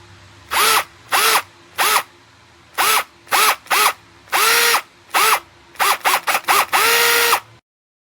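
Black+Decker 20V MAX cordless drill running in about a dozen short trigger pulls. The motor whirs up and winds down each time, with two longer runs, one near the middle and one near the end.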